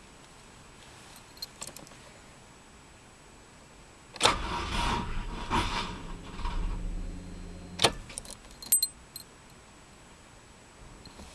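Keys clink in the ignition, then a 1998 Honda Civic's starter cranks the engine weakly for about three and a half seconds. The engine does not catch, and the cranking stops with a sharp click, followed by more key jingling. The weak crank is the sign of a failing starter motor.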